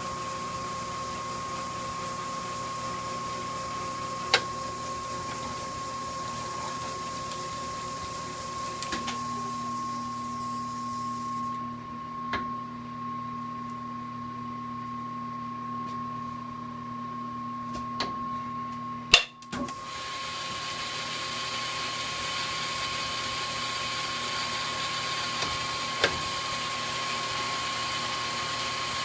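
South Bend 10 engine lathe running on its electric motor: a steady hum and whine whose character changes a few times as the drive is changed. Several sharp clicks sound over it, the loudest about two-thirds of the way through.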